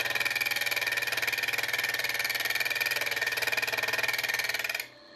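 A slotting cutter in a milling machine spindle cutting a groove into a 4140 steel block: a steady, high metallic cutting noise with a fast regular pulse from the cutter teeth. Close to the end it drops away suddenly to a faint hum.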